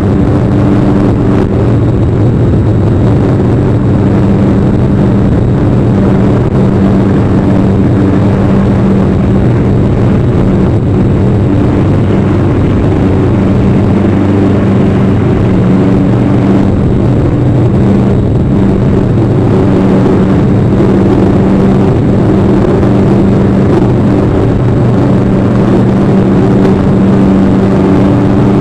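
Steady, loud low drone with several held low tones over a rushing haze, engine-like, unchanged throughout.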